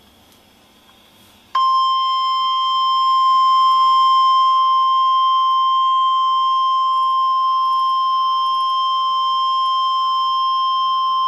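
NOAA Weather Radio 1050 Hz warning alarm tone, the attention signal sent ahead of a hazardous-weather alert broadcast. A single steady, loud, high-pitched tone starts abruptly about a second and a half in and holds unchanged, after faint receiver hiss.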